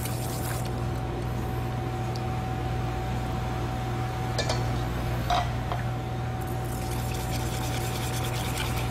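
A wire balloon whisk beats a wet egg-yolk mixture in a stainless steel bowl with a scratchy, sloshing sound. The whisking eases in the middle while cold milk is poured in a little at a time from a plastic measuring cup, with a couple of light clicks, then picks up again. A steady low hum runs underneath.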